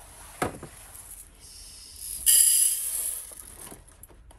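Dry rice grains poured from a bag into a plastic measuring cup, a hissing rattle lasting about a second and a half in the middle, after a light click about half a second in.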